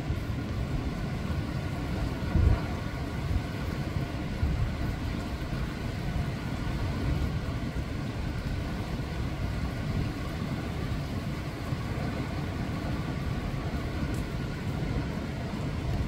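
Surf breaking and churning over a rocky shore: a steady low rumble of waves, with a brief louder surge about two and a half seconds in.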